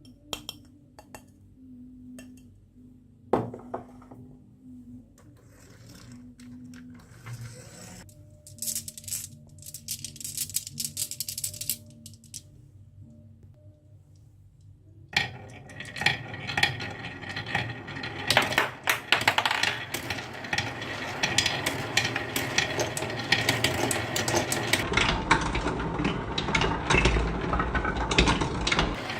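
Marbles rolling and clattering down a wooden marble run. In the first half there are scattered clicks and a few sharp knocks. From about halfway a dense, continuous clatter of many marbles runs on.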